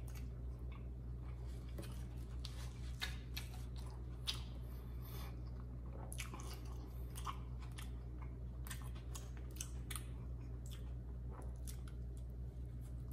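Close-miked chewing of a McDonald's Prosperity burger: a steady run of small wet mouth clicks and smacks at an uneven pace, with another bite taken near the end.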